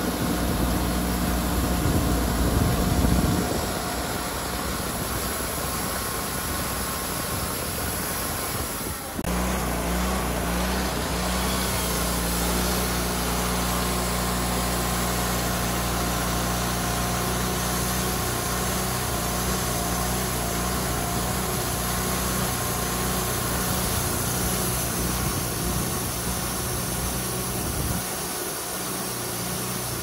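Wood-Mizer LT40 band sawmill's engine running steadily, its note changing abruptly about nine seconds in.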